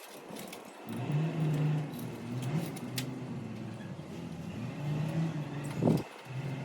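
An engine running with a low hum that wavers in pitch, with a few light metallic clinks.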